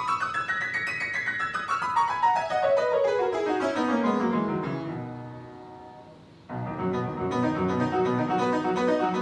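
Upright piano played: a quick run climbs up the keyboard, sweeps back down to the bass and dies away on a low note. About six and a half seconds in, a new passage of repeated chords in a steady rhythm starts suddenly.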